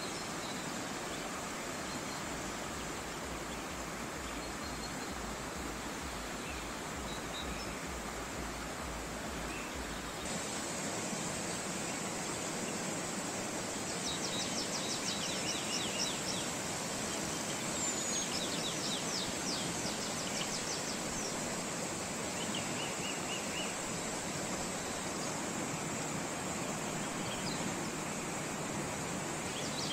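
Steady rush of a fast, shallow stream over rocks, with small birds singing short rapid trills a few times in the middle.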